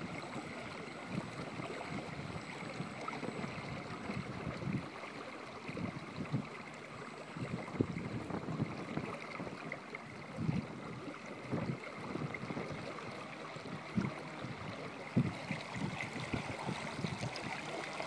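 Wind buffeting the microphone in irregular gusts over a steady rush of wind and small waves, with a faint steady high whine underneath.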